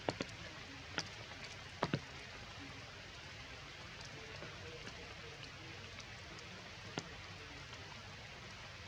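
Steady rain falling on tree leaves, with a few sharper drop hits standing out, several in the first two seconds and one about seven seconds in.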